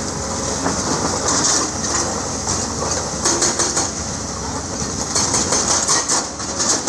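Diesel engines of tracked excavators running steadily while they dig broken stone. Loose rock clatters in bursts about three seconds in and again from about five to six seconds in.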